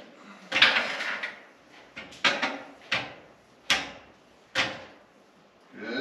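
Metal parts of a mini bike's inverted front fork being handled and fitted: a scrape as parts slide together, then several sharp clunks of fork tubes and clamp knocking into place.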